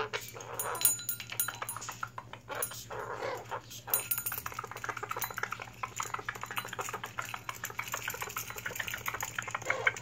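A blue-crowned conure biting and mouthing a small steel bell: rapid clicks and clinks of the beak on the metal, with brief bell rings near the start, mixed with low, rough grumbling from the bird.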